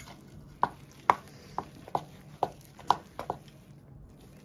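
A metal spoon knocking against a stainless steel bowl about twice a second while stirring chickpea flour and water into a stiff dough.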